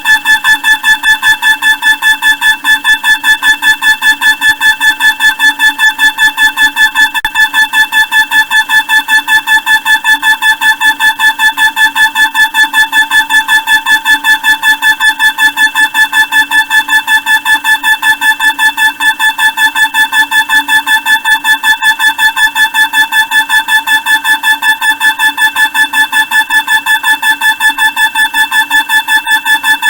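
A steady, loud, high-pitched machine whine that pulses quickly and evenly, about three times a second, without change.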